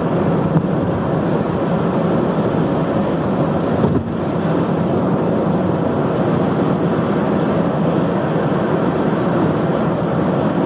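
Steady road and engine noise heard from inside a moving vehicle, with a brief dip about four seconds in.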